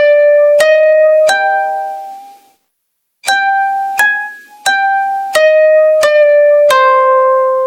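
Ringtone melody of single plucked-string notes, each striking sharply and fading: three notes, a brief silence, then six more, the last one left ringing.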